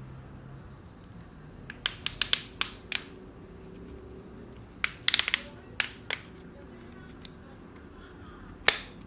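Sharp clicks and taps from a smashed Oppo A31 phone being handled and turned over. A quick run comes about two seconds in, another cluster about five seconds in, and a single loud click near the end.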